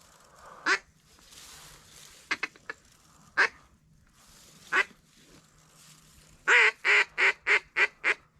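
Mallard-type duck quacking: a few single quacks spaced out, then near the end a quick run of about seven quacks, each shorter than the last, in the descending pattern of a hen's calling sequence.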